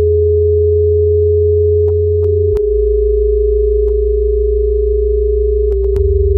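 Experimental electronic drone music: a steady pure sine tone held over a deep bass drone, which shifts pitch about two and a half seconds in and again near the end, with a few scattered clicks.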